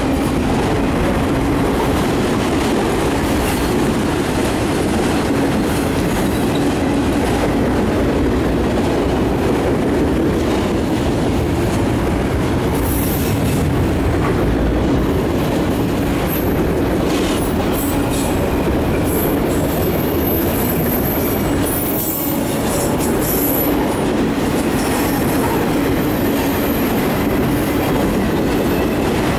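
Freight train of autorack cars rolling past close by: a steady loud rumble and rattle of wheels on rail with rhythmic clickety-clack over the joints. From about halfway through, high-pitched wheel squeals come and go over the rumble.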